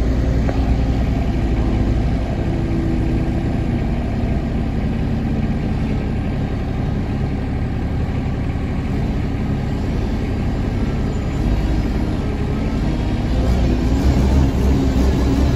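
Engine of a truck-mounted forklift running steadily as it drives carrying a load, growing louder over the last few seconds as it comes closer.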